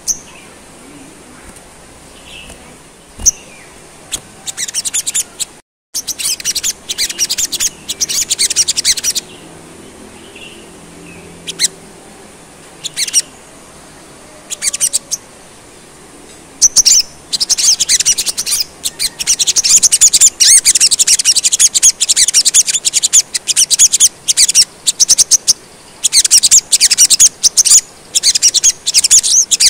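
A caged sogon songbird singing in rapid, high-pitched twittering bursts. It starts with scattered chirps and short phrases, then becomes a fast, almost unbroken twitter from about halfway through.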